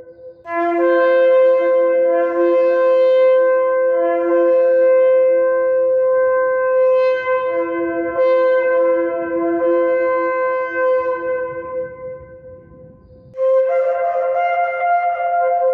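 Ram's-horn shofar blown in one long held blast that starts about half a second in and fades away after about twelve seconds. A new blast begins near the end.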